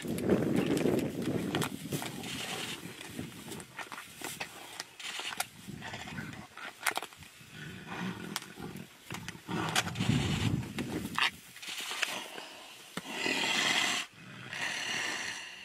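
Tigers growling and snarling as they wrestle a prey animal down, with scuffling and thrashing in between. The loudest deep growls come at the start and again about ten seconds in, and a harsher, higher snarl comes near the end.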